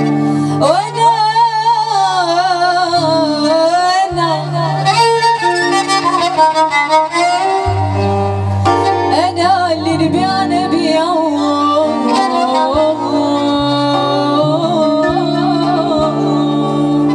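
Live Moroccan chaabi music: a woman singing with a wavering, ornamented voice, with a violin and keyboards holding long low notes beneath.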